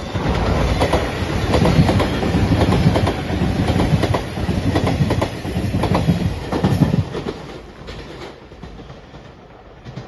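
JR Shikoku 8000 series limited express electric train passing close at speed, its wheels clacking over rail joints in quick runs. It is loud for about seven seconds, then fades as the last car goes away.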